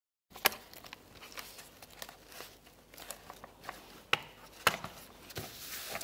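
Thin laser-cut plywood model parts being handled and pressed together by gloved hands: quiet rustling and small taps, with a few sharp wooden clicks, one about half a second in and two more a little past the four-second mark.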